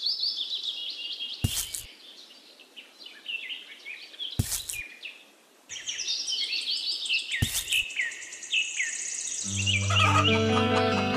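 Songbirds chirping and twittering throughout, with sharp clicks about every three seconds. Near the end, low farm-animal calls join in, clucking and mooing.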